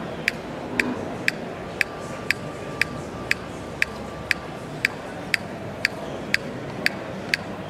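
Sharp, regular ticking, about two ticks a second, over a steady background hum.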